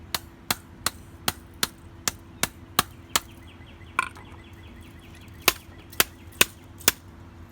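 Hammer striking a plastic TV remote control over and over: a run of about nine sharp blows at roughly three a second, a pause, then four more.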